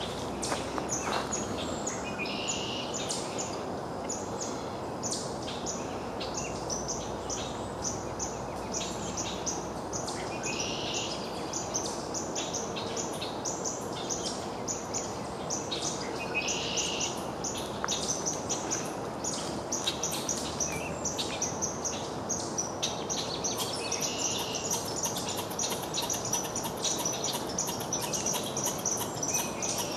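A squirrel going off in alarm: fast, repeated high chips throughout, with a longer call about every six or seven seconds, over the steady rush of a creek.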